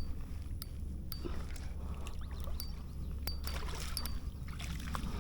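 Steady low rumble of water and wind around a small fishing boat, with sharp light clicks now and then.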